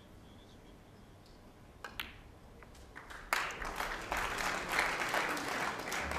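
Snooker shot: two sharp clicks about two seconds in, the cue tip striking the cue ball and the cue ball hitting the object ball, then audience applause breaking out about a second later and running on loudly.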